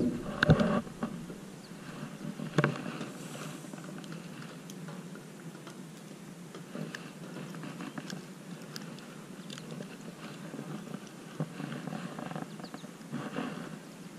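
A hooked largemouth bass splashing and thrashing at the surface as it is lifted out of the water. This gives a few loud splashes and knocks in the first few seconds, then quieter handling noise with scattered faint clicks while the fish is held.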